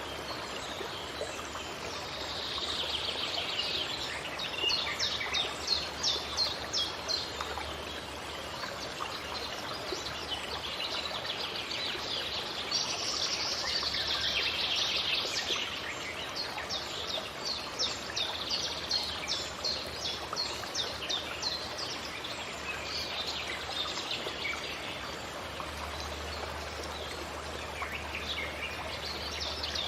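Forest birdsong: several birds calling, with runs of rapid, repeated high chirps a few seconds long, over a steady background rush.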